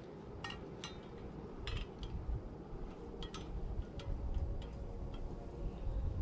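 A frying pan being set on a lit cooking stove: scattered light metal clicks and clinks over a low rumble that grows louder about four seconds in.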